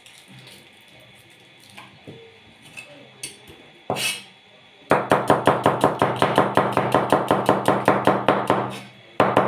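Broad-bladed kitchen knife chopping a red onion on a plastic cutting board: rapid, even strokes, about five or six a second, starting about five seconds in and pausing briefly near the end. Before that, faint taps and rustles as the onion is peeled by hand, and one sharp knock as the knife is first brought down.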